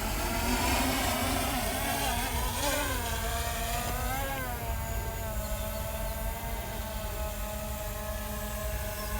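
DJI Air 2S quadcopter's propellers buzzing in flight. The pitch wavers up and down a few seconds in as the motors change speed, then holds steady.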